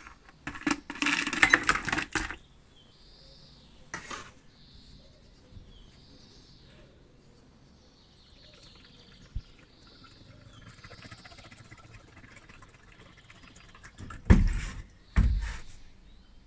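Small metal stove parts tipped from a plastic tub clattering down into a bucket of rust-remover solution. Later a faint trickle of liquid poured from a plastic jug, then two heavy thumps near the end as the jug is set down on the bench.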